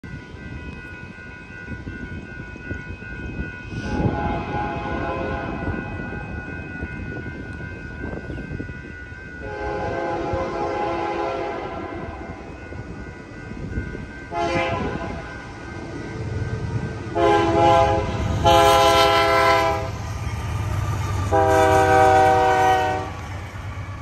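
Union Pacific diesel locomotive's multi-chime air horn sounding a varied series of blasts, some long and some short. The low rumble of the approaching locomotives builds in the second half.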